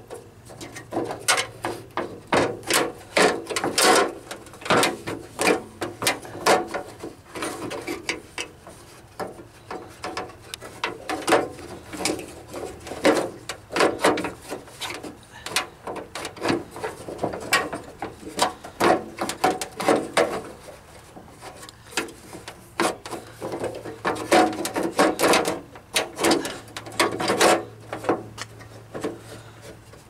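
Irregular metallic clicks, clacks and scraping from a door latch and its linkage rods being worked loose inside a Jeep Wrangler YJ half door, the rods snagging on the latch as it is wiggled.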